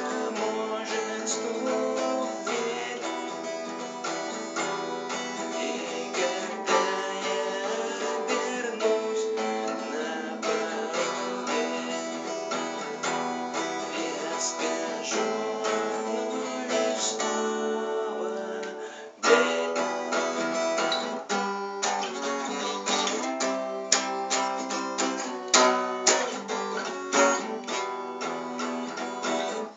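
Acoustic guitar strummed in a steady rhythm of chords, with no singing. About two-thirds of the way through it breaks off for a moment, then comes back with sharper, louder strokes.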